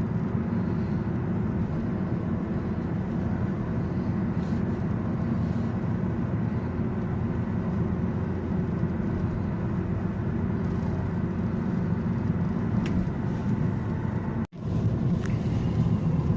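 Steady low rumble of road and engine noise heard from inside a moving car. It cuts out abruptly for an instant near the end.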